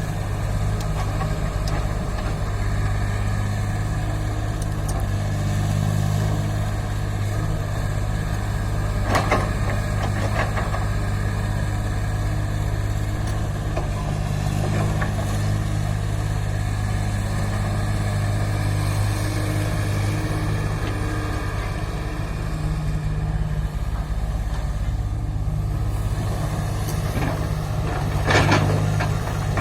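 Excavator's diesel engine running steadily, with a few sharp knocks about nine and ten seconds in and a louder one near the end.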